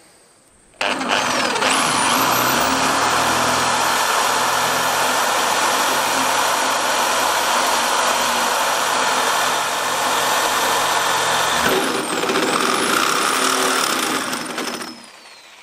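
Corded drill driving a 29 mm bimetal cobalt hole saw into thick steel, lubricated with cutting fluid. It starts about a second in and cuts steadily, with a brief break about twelve seconds in, then stops near the end.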